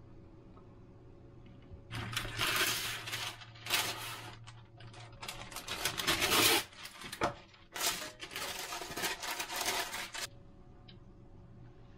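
Parchment cooking sheet being pulled from its box, torn off and laid into a metal oven tray: bursts of paper crinkling and rustling for about eight seconds, loudest a little past the middle.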